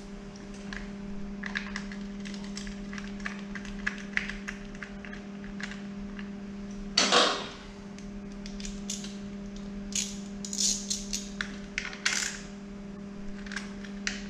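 Light plastic clicks and taps as the plastic ABS wire cover is fitted back onto a motorcycle's lower fork leg, with a louder brief scrape about seven seconds in. A steady low hum runs underneath.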